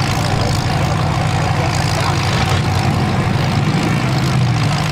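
V8 engines of demolition derby cars running steadily at idle, a constant low rumble with no crashes.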